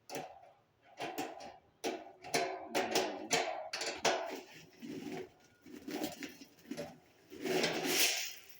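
Metal satellite dish mount parts and bolts clinking and knocking irregularly as they are handled and fitted, with a longer rattling scrape near the end.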